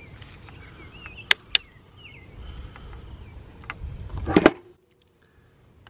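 Hands working on a circular saw and tools on a wooden bench: two sharp clicks about a second and a half in. A low rumble then builds for about two seconds, ends with a louder clatter, and cuts off abruptly.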